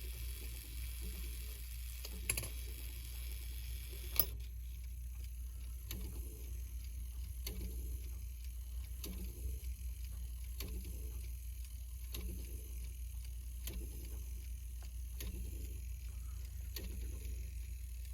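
Hermle 1050-020 triple chime clock movement working through a chime without sounding any chime notes, so only its mechanism is heard. Two sharp clicks come in the first few seconds, then soft regular knocks about every second and a half, over a steady low hum.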